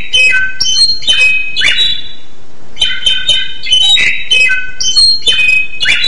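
Songbird singing a loud, rapid song of quick chirps mixed with rasping notes. The phrase breaks off about two seconds in, and the same phrase starts again about a second later.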